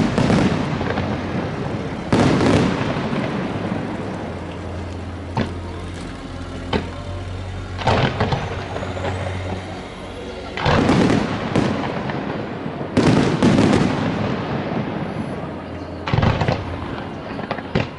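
Aerial fireworks shells bursting overhead: heavy booms every two to three seconds, each with a rolling rumble, and sharper cracks in between.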